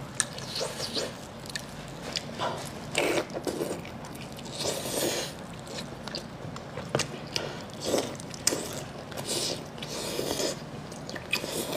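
Close-miked wet eating sounds of braised pork intestine dipped in chili oil: irregular sticky chewing, sucking and lip clicks.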